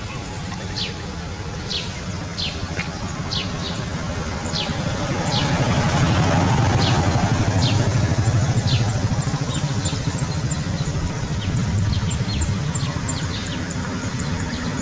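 A low motor-vehicle rumble that swells in the middle and fades again. Over it, a bird gives short chirps that fall in pitch, about two a second, and later a quicker run of short high chirps.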